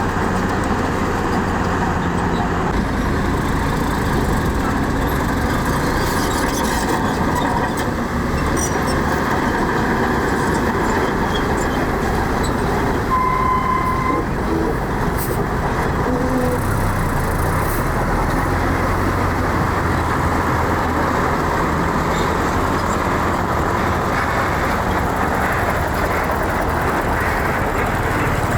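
Heavy diesel construction machinery, a bulldozer and dump trucks, running steadily, with one short high beep about halfway through.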